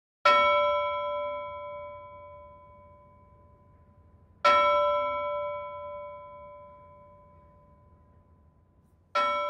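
A bell struck three times, about four and a half seconds apart, each stroke ringing out with several clear tones and slowly fading; the third stroke comes near the end.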